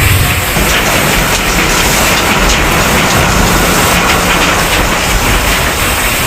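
Oil palm fruit crushing machine running, a loud, steady, dense mechanical noise with no breaks.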